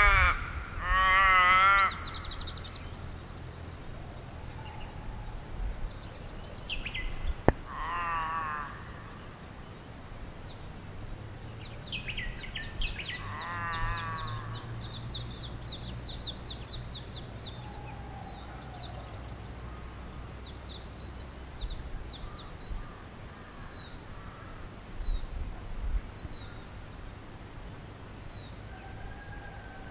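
Wild birds calling in bushland. A bird gives three loud, wavering calls: near the start (the loudest), about a quarter of the way in, and near the middle. Another gives a fast, high ticking trill that begins about a third of the way in and runs for several seconds, and softer calls are scattered through the rest.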